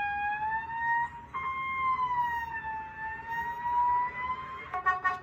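A high, wailing siren tone sliding slowly up and down, breaking off briefly about a second in and then resuming. Near the end it gives way to a run of short, clipped brass notes.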